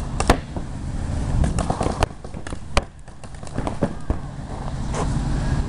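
Paintball markers firing: sharp pops at irregular intervals, some in quick clusters, over a low rumble of wind and handling noise on the gun-mounted camera.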